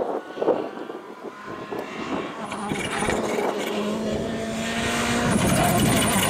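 Volkswagen Polo GTI R5 rally car's engine running hard on a stage, coming closer and getting louder over the last few seconds.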